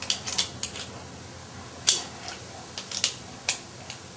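Scattered sharp clicks and clinks of a compression gauge's hose and metal fitting being handled at a string trimmer's spark-plug hole, the loudest click about two seconds in.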